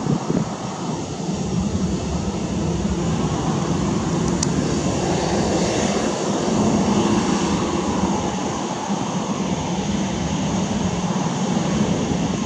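Boeing 737-800's CFM56-7B turbofan engines running at low taxi power as the airliner taxis past: a steady jet rumble that swells slightly about halfway through.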